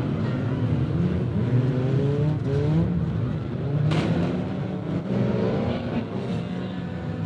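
Several banger racing cars' engines revving, rising and falling in pitch as they race, with one sharp bang about four seconds in.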